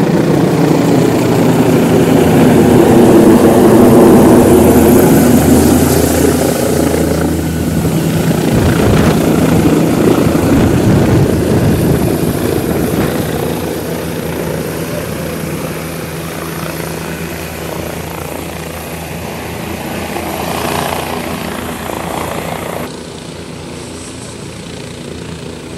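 Helicopter rotor and turbine noise as the helicopter comes in low overhead and lands, loudest a few seconds in as it passes close, then easing as it settles with its rotors still turning. The sound drops suddenly near the end.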